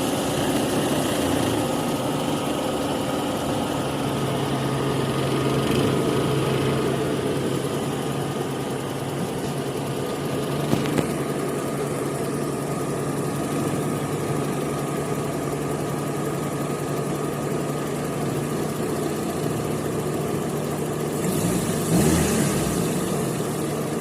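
Car engine idling steadily with a low, even hum, with two short clicks about halfway through and a brief louder noise near the end.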